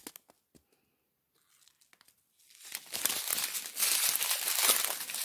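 Small clear plastic bags of diamond-painting drills crinkling and rustling as they are handled. The crinkling starts about two and a half seconds in, after a near-silent pause with a few faint ticks.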